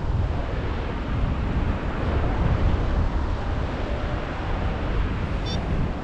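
Strong wind buffeting the action camera's microphone in a steady low rumble. A brief high tone sounds once near the end.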